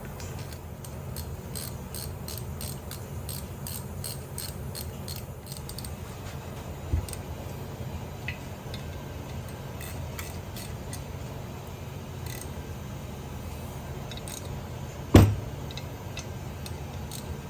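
Small metal parts clicking and clinking as they are handled, about two or three light clicks a second at first, then a single knock and, near the end, one loud clank of metal set down hard, over a steady low hum.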